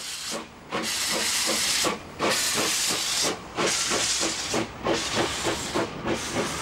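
Adler replica steam locomotive pulling away, steam hissing loudly in long surges that break off about every second and a half, with quick, even beats underneath.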